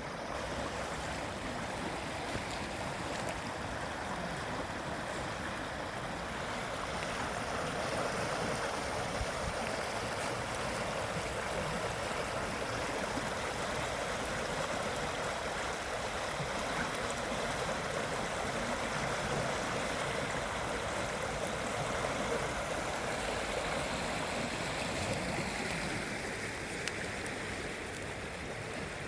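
Flooded creek rushing, a steady noise of fast, powerful water.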